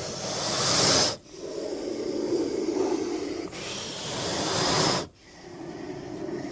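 Sound-designed giant snake creature effects for Titanoboa: a low, raspy breathing sound alternates with loud hisses. Twice, about a second in and again near five seconds, a hiss swells and then cuts off sharply.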